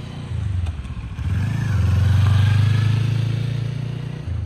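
2020 Kawasaki Ninja 400's parallel-twin engine running as the bike rides past at a steady pitch, growing louder to a peak about halfway through and then fading as it moves away.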